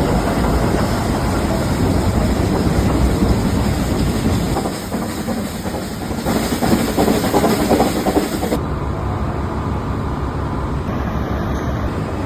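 Nilgiri mountain train running: a steady rumble and clatter of wheels on the rails. About two-thirds of the way through, the sound turns duller as its hiss drops away.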